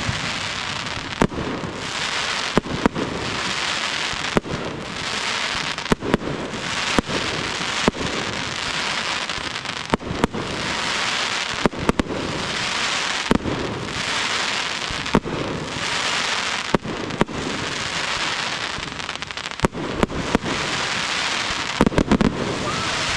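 Aerial fireworks display: shells bursting with a sharp bang every second or two over a continuous hiss and crackle, and a quick run of many bangs near the end.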